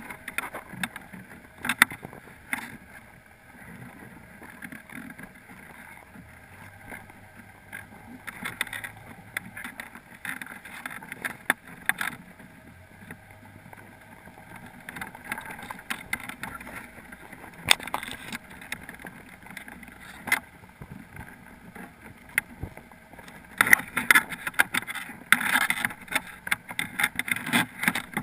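Crabs moving against a GoPro in its underwater housing inside a crab pot, heard muffled through the housing. It is a low scraping with scattered sharp clicks and knocks, busier and louder for the last few seconds.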